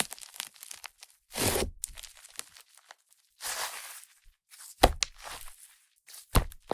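Fluffy clay-butter slime made with Yoda clay being squished and pulled by hand, its trapped air crackling and fizzing. Two longer squishes come about a second and a half and three and a half seconds in, with a few sharp clicks later on.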